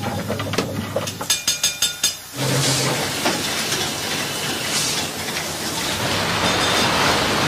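Reciprocating steam engine running: a quick, even run of metallic clanks for the first two seconds or so, then a steady hiss of steam.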